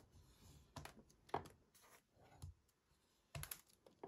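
Plastic scoring stylus drawn along the grooves of a scoring board, pressing score lines into cardstock: a few faint, short scraping strokes about a second apart.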